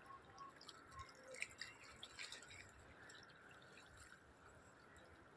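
Near silence, with faint scattered drips and small splashes of water.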